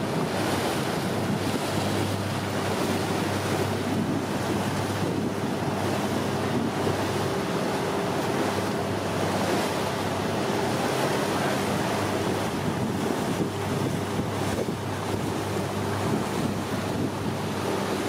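Wind rushing over the microphone and sea water washing against a boat's hull, over a steady low hum from the boat's engine.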